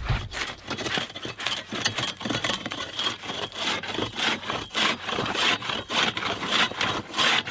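Hand ice saw cutting back and forth through an ice block, in short scraping strokes about two to three a second. A low thump comes right at the start.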